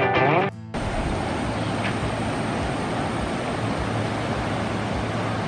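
Guitar music that cuts off about half a second in, then the steady rushing of a fast, flood-swollen river running over rocks in whitewater rapids.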